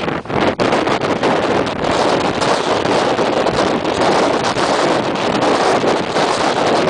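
Storm wind from Hurricane Sandy blasting across the camera microphone: a loud, unbroken rush of wind noise, with a couple of brief lulls just at the start.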